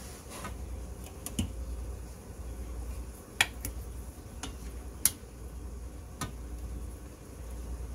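Metal tongs clinking against a stainless steel skillet as pieces of steak are turned: a handful of sharp clicks, the loudest about three and a half and five seconds in, over a low steady hum.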